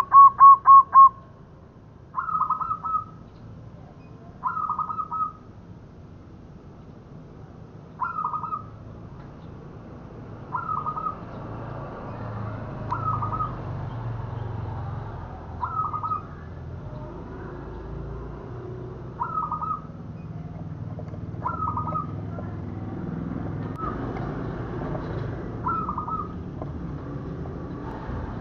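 Zebra dove (perkutut) cooing. It opens with the end of a quick run of cooing notes, then gives short phrases of a few notes about every two and a half seconds, roughly ten of them.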